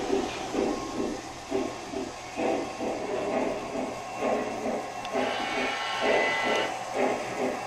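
Lionel O gauge model steam locomotive running, its sound system giving a steady chuff of about two to three puffs a second. A high steady tone sounds for about a second and a half some five seconds in.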